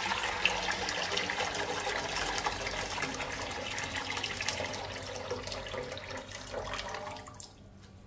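Water pouring in a steady stream into a pot of broth, splashing and bubbling, stopping about seven seconds in.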